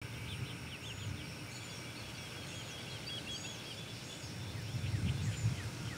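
Several birds singing in the early morning: a short high note repeats about once a second over a busier chatter of calls. A low rumble runs underneath and swells about five seconds in.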